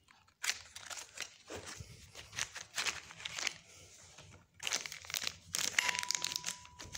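Plastic and cardboard packaging of a Walther Allen key set being opened by hand: irregular crinkling and crackling, pausing briefly in the middle, then louder near the end. A faint steady high tone sounds for about a second near the end.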